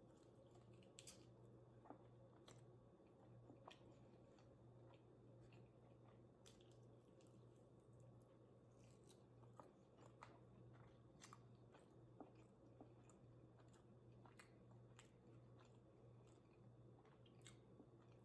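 Faint close-up chewing of food, with scattered soft mouth clicks and the odd crunch or bite at an irregular pace.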